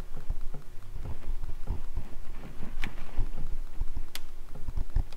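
Irregular light knocks and clicks of hands handling small hose clamps and plugs on a vehicle's transmission cooler lines, with a few sharper ticks.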